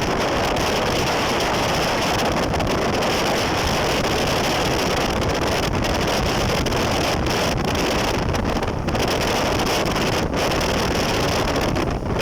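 Wind buffeting the microphone with water and motor noise underneath, as from riding a jet ski at speed. The noise is loud and steady throughout.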